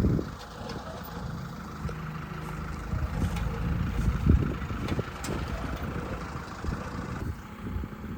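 A vehicle engine running in a low, steady rumble, with scattered knocks and rattles through it.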